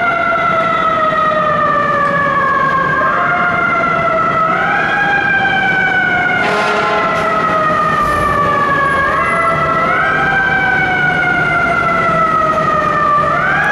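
A fire engine's mechanical siren runs loud. Its pitch sags slowly and is spun back up in quick rises about five times. A short hiss comes about halfway through, over the low rumble of the truck.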